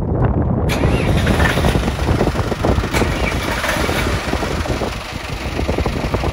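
Volvo Penta inboard marine diesel engine running, heard through the open engine hatch. A steady hiss joins in suddenly about a second in.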